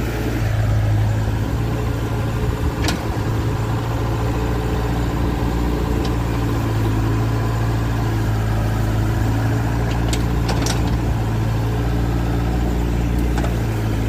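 Doosan DH60 mini excavator's diesel engine running steadily under work as it digs, with a few brief sharp clicks or knocks from the working machine.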